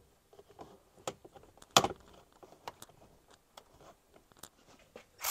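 Plastic interior dash trim panels being handled and pulled loose: scattered light clicks and rattles, with one louder snap a little under two seconds in.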